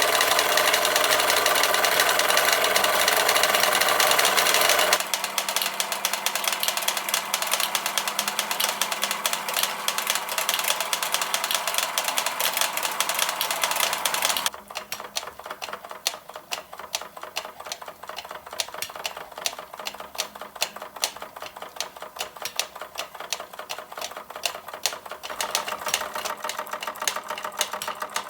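Doll 346/5 horizontal model steam engine running, with the rapid ticking clatter of the Fleischmann model hammer mill and blacksmith figure it drives. The level drops abruptly twice and rises again near the end.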